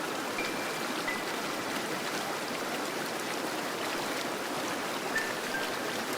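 Fountain water splashing and falling steadily. A few faint, brief high tones sound over it, once near the start and twice near the end.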